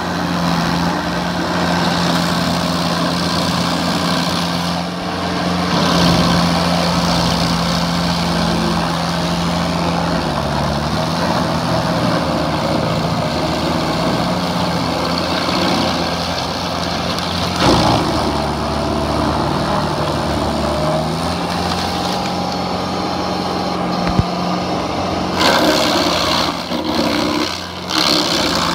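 Rayco stump grinder running at speed, its cutter wheel grinding into a tree stump, the engine note steady with two brief dips in pitch, about ten and twenty-one seconds in. Louder bursts of grinding come near the end.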